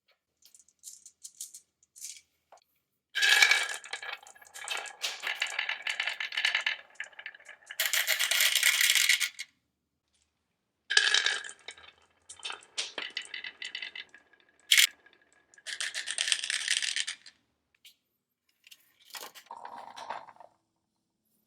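Marbles clattering and rolling down a marble-run slope. There are two busy runs of many quick clicks with a short pause between them, then a few scattered clicks near the end.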